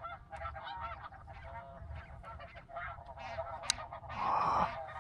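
A flock of snow geese calling overhead and around the decoys, a dense chatter of many overlapping honks. A sharp click just before four seconds in and a louder, harsher burst right after it.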